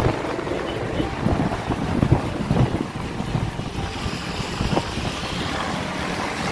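Wind buffeting the microphone over the rumble of a moving vehicle on the road.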